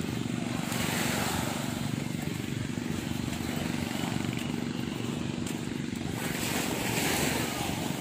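A steady engine drone at an even pitch, with two swells of hissing noise over it, about a second in and again near the end.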